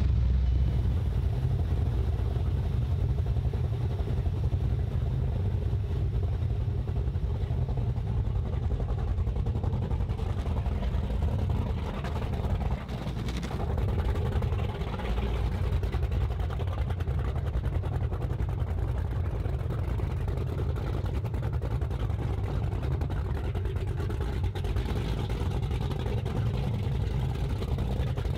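Twin 525-hp big-block V8 engines of a 35-foot Fountain powerboat running at idle with a steady low rumble as the boat eases away from the dock.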